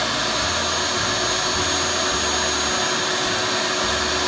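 Shop vac, scroll saw and aquarium air pump running together, all switched on at once by a foot pedal. The shop vac's steady high whine is the loudest part.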